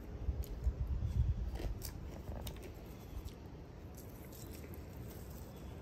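Faint crackle of crisp thick-cut bacon strips being handled and laid onto burgers, a few light crunchy ticks, over a low rumble in the first second or so.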